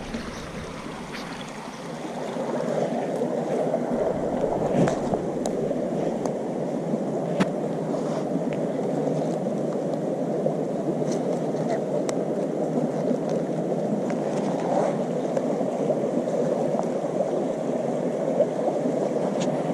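Steady rush of flowing river water, getting louder about two seconds in, with scattered small clicks over it.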